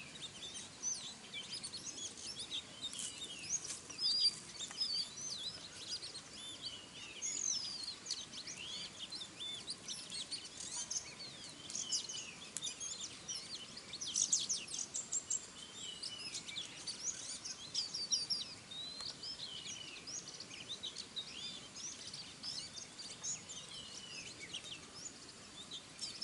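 Many small wild birds chirping and twittering at once, a busy overlapping chorus of short high calls over a steady background hiss.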